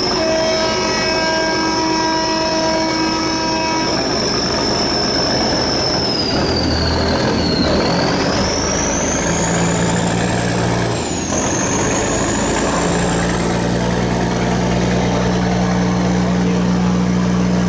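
Diesel engines of a sand barge running hard, their pitch shifting as the engine speed changes. A high whine sinks about seven seconds in and then climbs again, and a steady cluster of level tones sounds over the first four seconds.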